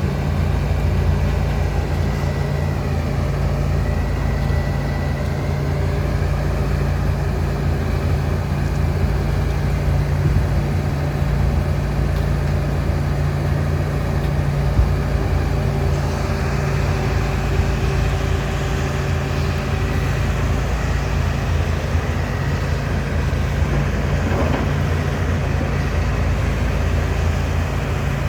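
John Deere 245G LC excavator's diesel engine running steadily, with a faint high whine that dips and comes back a few seconds in.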